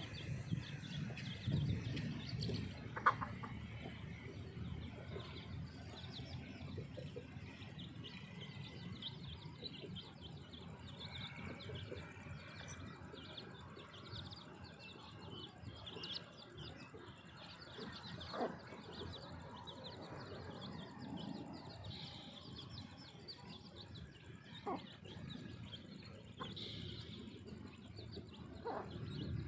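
Baby chicks peeping, many short high chirps scattered throughout, over a low rumble that is strongest in the first few seconds.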